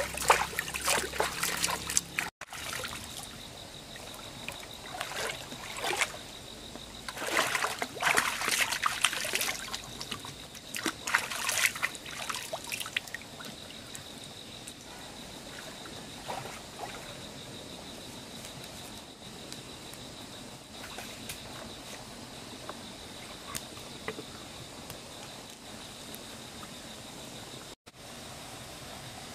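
Hands splashing and sloshing in shallow stream water, in irregular bursts through the first half. After that only a steady faint hiss remains, with a thin high whine.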